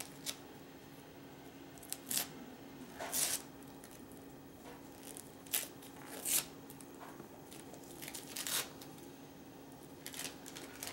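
Gift wrapping paper being torn and crinkled by hand in short rips, about half a dozen spread a second or two apart.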